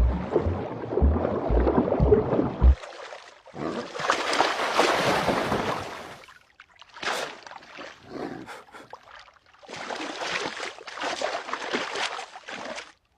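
Water sloshing and splashing in uneven bursts, with heavy low thumps through the first few seconds.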